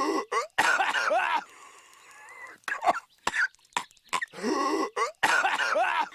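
Cartoon character Patrick Star coughing over and over: short, sharp hacks and longer, strained voiced coughs, the same sequence repeating as a loop.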